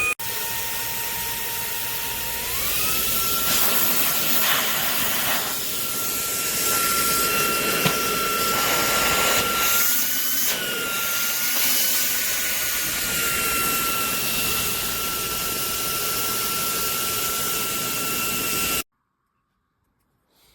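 Fanttik Slim V8 Apex cordless handheld vacuum's motor running with a steady rush of air and a high whine. The whine steps up in pitch about two seconds in as the motor speeds up, wavers briefly about halfway through, then holds steady until the sound cuts off suddenly near the end.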